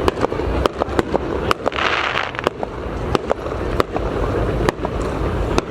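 Aerial fireworks going off in quick succession: a rapid string of sharp bangs and pops over a continuous low rumble, with a short hiss about two seconds in.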